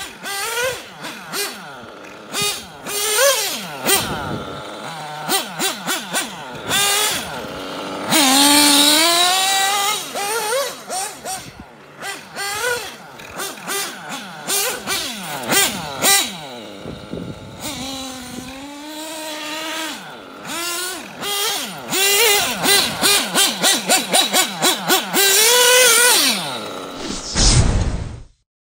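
Reds R5R .21 nitro engine of a Kyosho Inferno MP9 1/8-scale buggy, freshly broken in and tuned, revving hard and falling off again and again as it is driven, its pitch sweeping up and down with runs of quick throttle blips. A short deep boom comes near the end, and then the sound cuts off.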